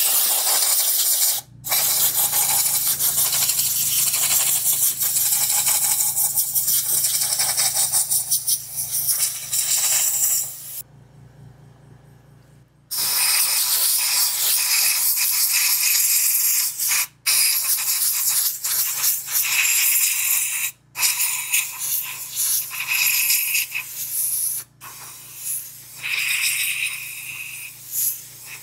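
Compressed air hissing from an air compressor's blow gun, blowing tire cleaner off RC truck tires in long blasts, with a break of about two seconds near the middle and several brief pauses later. A low steady hum runs underneath from about a second in.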